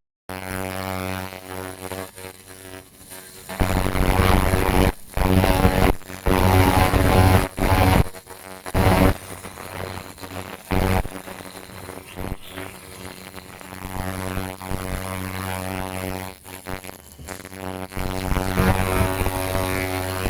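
Pulsed fiber laser cleaning head buzzing as it strips oil from a metal surface, a steady droning buzz that stops and restarts several times and is loudest for a few seconds early on.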